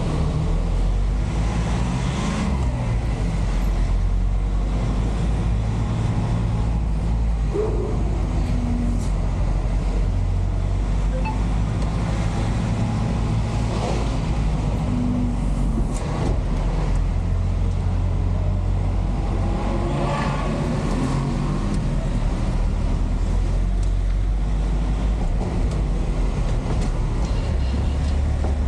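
Engine of a JAC truck running steadily, heard from inside the cab as it drives slowly through city traffic, with a low drone that shifts in level now and then. Passing street traffic and motorcycles add brief louder moments.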